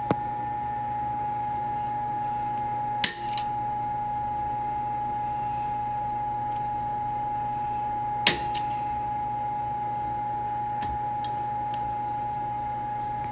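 A steady high electrical whine over a low mains hum, with sharp clicks about three seconds in and again about eight seconds in.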